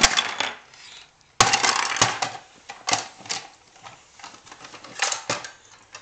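A run of sharp clicks and clattering knocks of small hard objects, with the loudest at the very start and about a second and a half in, followed by scattered lighter clicks.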